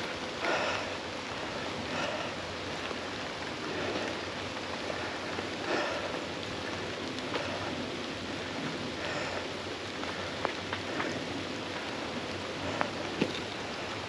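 Steady hiss of rushing water, with a few faint ticks near the end.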